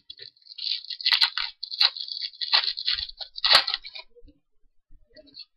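Foil wrapper of a baseball card pack being torn open and crinkled by hand. The crackling goes on for about four seconds, then stops.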